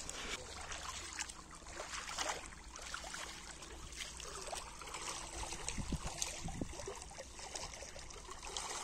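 Shallow river water trickling and splashing, with small irregular splashes as a cast net is drawn in through the water.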